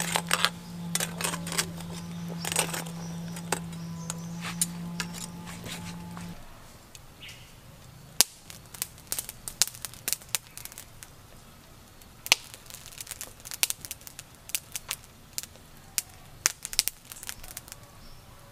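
Irregular sharp clicks and cracks, with a steady low hum under them for the first six seconds that stops abruptly.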